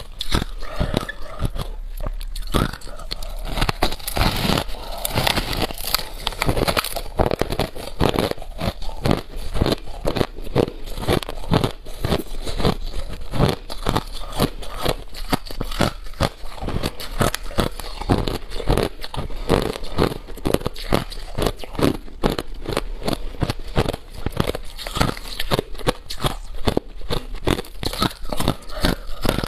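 A person biting and chewing a mouthful of packed crushed ice: a continuous run of crisp crunches, several a second, picked up close by a clip-on microphone.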